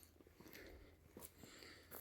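Near silence, with a few faint, short clicks and rustles.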